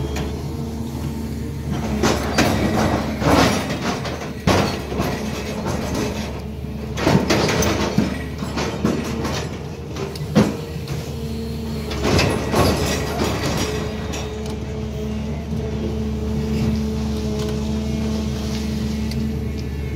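SANY crawler excavator's diesel engine running steadily under hydraulic load, while the steel bucket digs into rocky soil at the bottom of a well pit with irregular clanks and scrapes, most of them in the first dozen seconds and two loud knocks in the middle.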